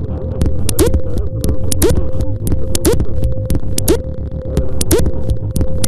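River current heard underwater: a loud, steady low rumble of fast-flowing water, with many irregular sharp clicks and knocks, a steady hum, and a short rising chirp about once a second.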